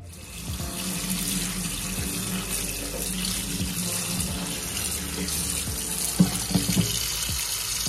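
Kitchen tap running into a steel sink, the water splashing through mustard greens in a plastic colander as they are rinsed by hand; the rush starts about half a second in. A few sharp knocks near the end.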